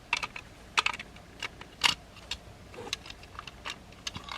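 Hard plastic toy parts clicking and tapping in an irregular string of a dozen or so clicks, the loudest about two seconds in, as DNA Designs DK-38 upgrade-kit foot pieces are slid onto a Transformers Legacy figure's legs.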